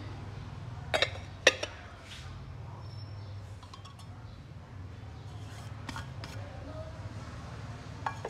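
Metal pot lids clinking as they are set down over bowls of noodles: two sharp clinks about a second in, then a few lighter clinks, the last near the end, over a low steady hum.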